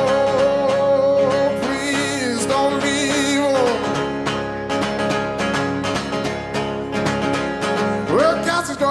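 Background song with plucked guitar over a steady beat, and a voice holding long notes in the first few seconds and again near the end.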